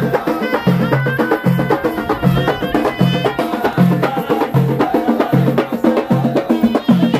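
Unamplified Amazigh wedding music. A ghaita (reed oboe) plays a wavering, reedy melody over a painted tbel drum and hand-held frame drums. A deep drum beat falls about every three-quarters of a second, with quick sharp strokes in between.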